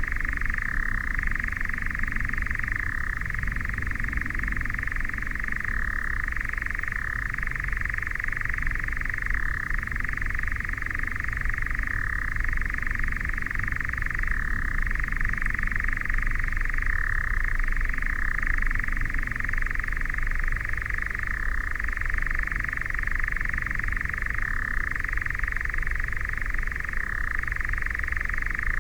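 European nightjar churring: one continuous dry, mechanical trill, with a brief shift in pitch every few seconds. A low rumble runs underneath.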